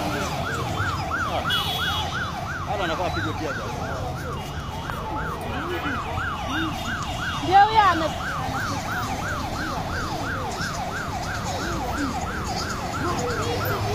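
Siren in a fast yelp, its pitch rising and falling about three times a second, over a low rumble of street traffic. A short, louder sound breaks in about halfway through.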